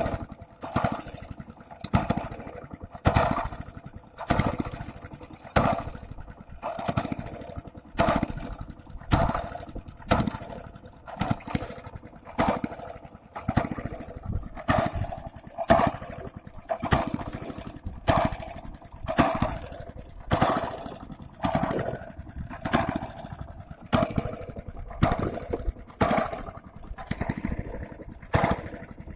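A boat's motor running, its noise swelling and fading about once a second in an even rhythm.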